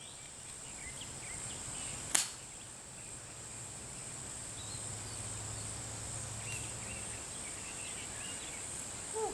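A single sharp click of a golf club striking the ball about two seconds in, over a steady high-pitched insect drone and faint bird chirps.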